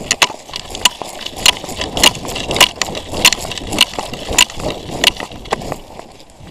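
Running footsteps crunching over rough, twiggy ground, a sharp step about every half second, with rustling of clothing and kit between the steps.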